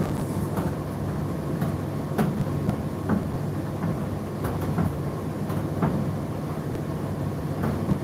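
Indesit IDC8T3 condenser tumble dryer running mid-cycle: a steady low motor and fan hum, with irregular light knocks as the load tumbles in the drum.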